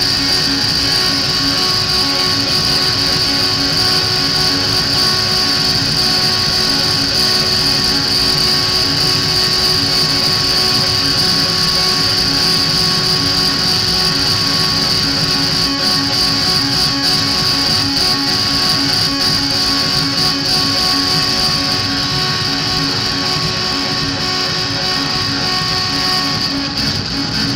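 Live noise music: a loud, steady, dense wash with a bright high hiss and several held drone tones, no beat, thinning slightly near the end.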